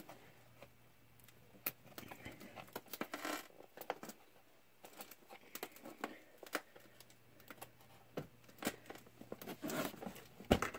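Light handling noise of a shrink-wrapped cardboard box: scattered plastic-wrap crinkles and small clicks and taps, a little busier near the end.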